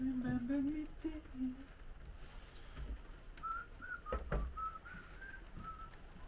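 A man humming a few low notes, then whistling a short tune of stepped notes. There is a knock with a low thud about four seconds in.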